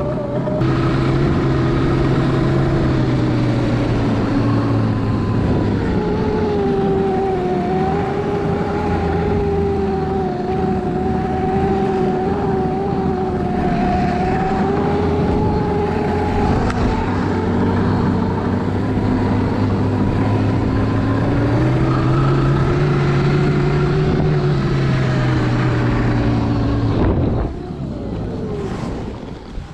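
Electric snowbike with a snow track kit riding: the electric motor's whine slides up and down in pitch as the speed changes, over a steady noisy rush. Near the end it eases off, gets quieter and the pitch drops.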